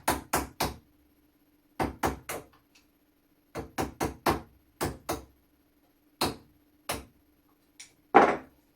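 Hammer striking a punch in quick groups of two to four blows, driving a rusted, seized part out of the wooden stock of an old flintlock shotgun. The part has begun to give. The loudest blow lands near the end.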